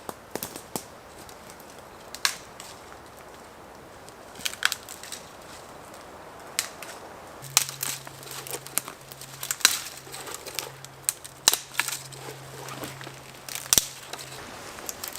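Dry leaves and twigs crunching and snapping underfoot or in hand in woodland: irregular sharp crackles, sparse at first and more frequent from about halfway through.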